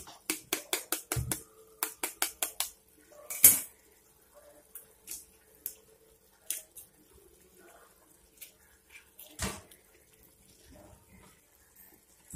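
Eggs being tapped and cracked against the rim of a metal kadai and dropped into simmering curry. A quick run of sharp taps comes in the first few seconds, with a loud knock about three and a half seconds in, then scattered ticks and another knock about nine seconds in.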